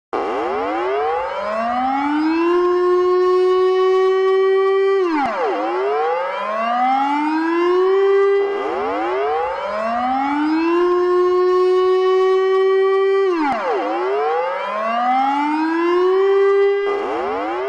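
Civil defense siren wailing. Its pitch climbs for a couple of seconds, holds, then drops sharply and climbs again, about four times in a row.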